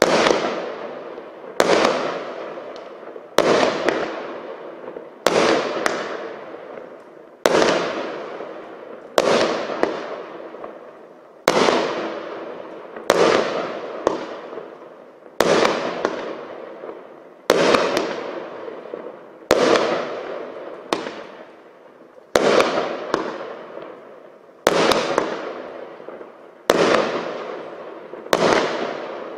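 Panda Fireworks 'Brocade Crown' 42-shot cake firing shot after shot, a sharp bang about every one and a half to two seconds, each followed by a fading hiss as the brocade crown burst falls away.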